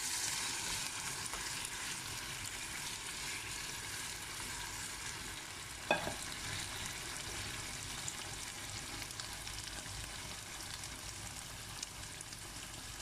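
Food sizzling steadily in a frying pan, with one sharp knock, like a utensil striking the pan, about halfway through.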